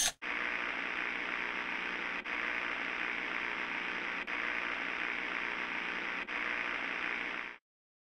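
Steady static-like hiss, drops out briefly three times at about two-second intervals, then cuts off suddenly shortly before the end.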